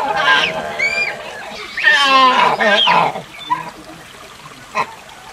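Proboscis monkey calls: a series of loud, wavering cries with several overtones, the loudest about two seconds in. After about three seconds they fall quieter, and a short click comes near the end.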